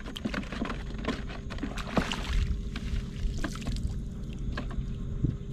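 Shallow seawater splashing and sloshing as a wader moves through it and scoops with a hand net, with irregular splashes and drips over a low steady rumble.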